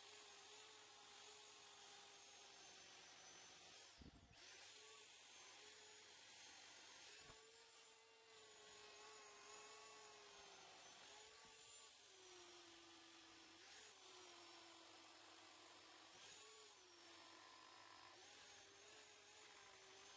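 Faint whine of a handheld electric power file (narrow belt sander) texturing a white-pine carving, its pitch dipping and recovering several times.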